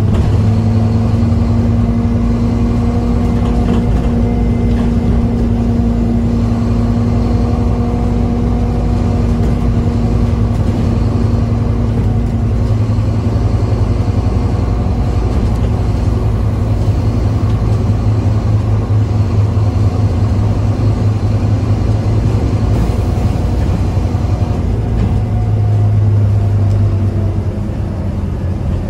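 Scania OmniCity bus's diesel engine and drivetrain heard from inside the passenger saloon while the bus is under way: a steady low hum with a steady whine above it. It swells for a couple of seconds near the end, then eases off.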